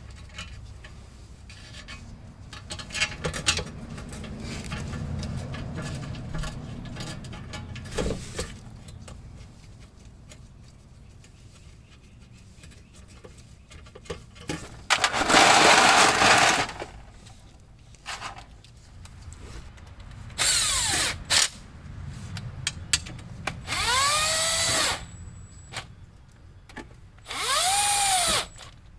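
Power drill driving in the transmission pan bolts in four short bursts in the second half, the pitch of each burst rising and then falling. Before that there are light clinks and handling noise.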